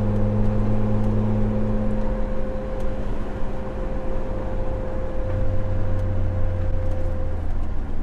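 Roof-mounted LED light bar on a Jeep Wrangler TJ humming steadily in the airflow at highway speed, heard inside the cabin over engine, tyre and wind noise. Sound isolators fitted to the bar take away about 90% of the noise but not all of it.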